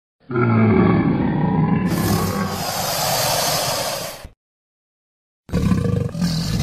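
Tylosaurus creature sound effect: a loud roar that opens with a falling growl, with a hissing layer joining about two seconds in. It cuts off abruptly about four seconds in, and after a second of silence a second roar begins near the end.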